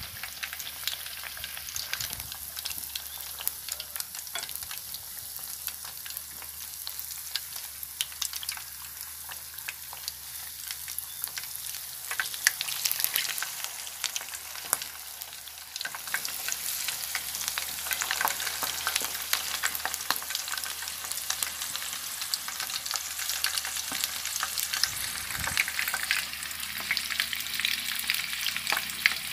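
Shrimp-and-batter-topped bread slices deep-frying in hot oil, a steady sizzle full of fine crackles and pops that gets louder about halfway through.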